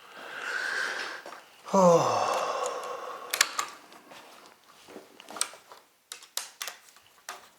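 A breathy exhale, then a loud vocal groan that falls in pitch, followed from about three seconds in by a run of small sharp clicks from handling the switch, its wires and the screwdriver.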